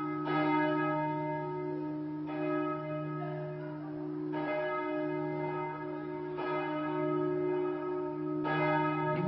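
Church bell tolling, struck about every two seconds, each stroke ringing on under the next with a deep steady hum.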